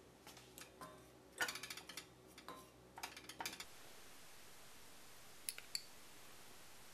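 A spatula clicking and scraping against a dry stainless steel saucepan as ground cumin and coriander are stirred, in quick clusters for about three seconds. Two more light taps come near the end.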